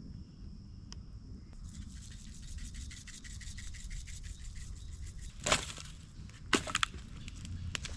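Campfire crackling in many small quick snaps over a low rumble. A louder crack comes about five and a half seconds in, and a short cluster of cracks or knocks follows about a second later.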